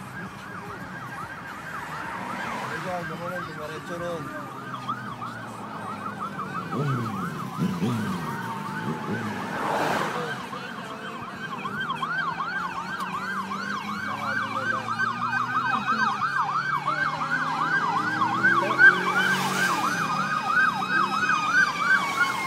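Emergency vehicle sirens, more than one at once: a fast yelp of about three or four sweeps a second alternating with a slow rising-and-falling wail, with a second wail higher up joining in the second half, growing louder toward the end.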